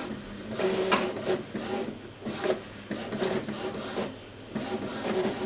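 Epson EcoTank ET-2720 inkjet printer printing a setup test page: the paper-feed rollers and print-head carriage whir and click in uneven passes, with a short lull about four seconds in.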